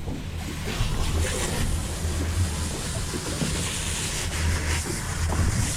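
Steady low hum of a fishing boat's engine under the wash of the sea and wind on the microphone.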